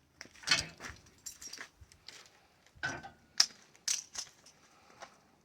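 A series of irregular, sharp metallic clinks and taps, about eight short hits spread over a few seconds.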